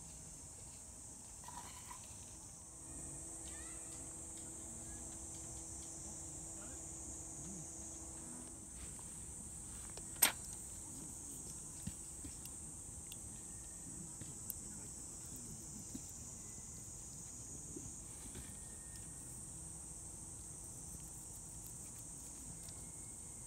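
Steady high-pitched chirring of insects in summer grass, with one sharp clink of cutlery about ten seconds in and a few light taps of a knife and fork on a bamboo plate as a fish steak is cut.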